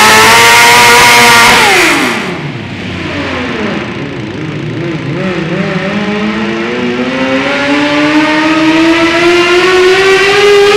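Modified garden pulling tractor engines under full load: one runs at high revs, then winds down in pitch about two seconds in. Another pulling tractor's engine follows, its pitch climbing steadily and growing louder as it drags the weight sled.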